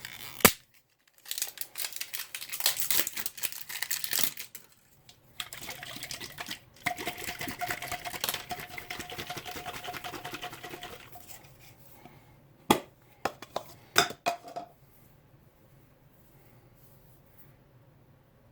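Can of expanding spray foam hissing in bursts as foam is squirted through its straw nozzle into gaps in a wall, with a steady whistling tone through the longest burst. A sharp click about half a second in and a few clicks a little after the spraying stops.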